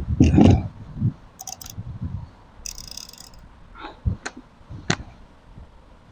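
Gamo Speedster break-barrel air rifle being handled between shots: a short scrape near the middle, then two sharp clicks about a second apart near the end.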